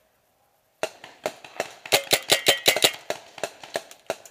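Paintball marker firing a rapid string of sharp pops, about five or six a second, starting about a second in.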